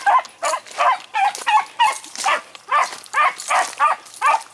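Hunting beagle baying on a rabbit's scent trail, giving a rapid run of short, pitched cries, about three a second.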